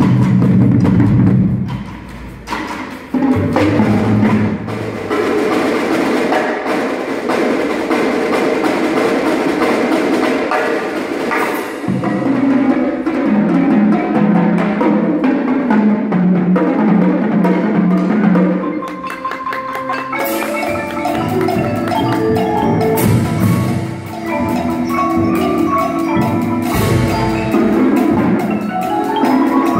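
Indoor drumline playing: marimbas and xylophones carry a pitched line over timpani and marching bass drums and snares.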